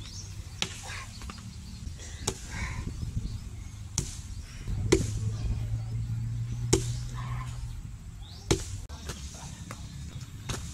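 Bare-handed conditioning strikes in iron hand kung fu practice: about seven sharp, separate smacks at uneven spacing.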